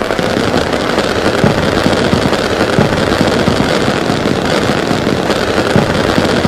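Rojão firecrackers going off in a dense, unbroken rattle of rapid small bangs at an even level.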